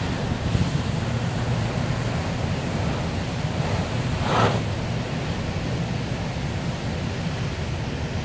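Heavy storm surf: a steady rush of breaking waves and churning whitewater, with wind buffeting the microphone. A brief louder rush about four and a half seconds in.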